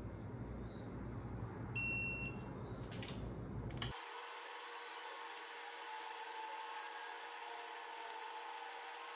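Snap-on digital torque wrench giving one short, high beep about two seconds in as a cylinder-head bolt reaches its set torque, followed by a few light clicks from the wrench's ratchet head.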